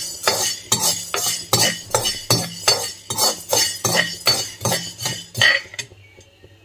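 Steel spoon stirring black peppercorns dry-roasting in a coated kadai: rhythmic scraping and rattling strokes, about two or three a second, that stop near the end.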